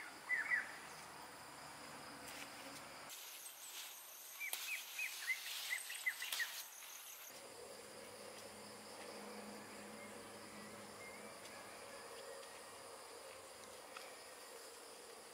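Faint garden ambience: a steady high insect drone, with a couple of short falling bird chirps at the start and a quick run of bird chirps in the middle.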